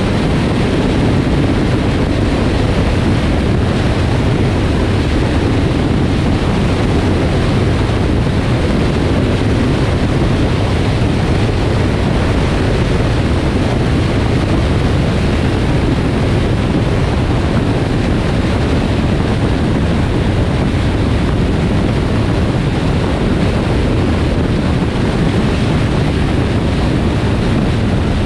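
Steady rush of wind and road noise from a car driving at speed along a highway, with no breaks or changes in level.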